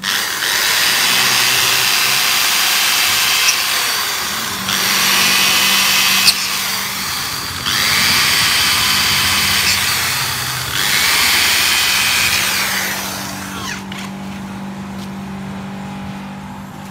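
A power tool working aluminium door profile, in four loud runs of about three seconds each, its motor then running on more quietly near the end.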